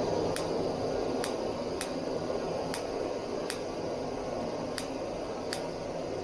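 A lighter sparked again and again at a Jetboil Stash backpacking stove burner: seven sharp clicks at uneven intervals of about a second, with the stove failing to catch. Under them runs a steady rushing noise.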